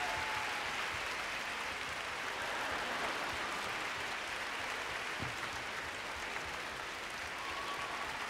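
Large audience applauding steadily in an arena, a continuous even clatter of many hands.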